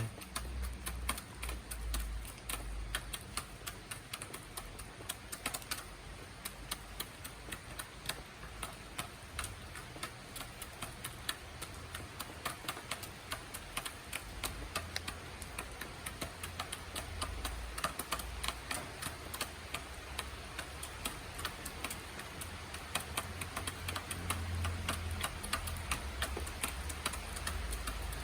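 Chickens pecking at feed, their beaks tapping in quick, irregular clicks, several a second, over a low rumble.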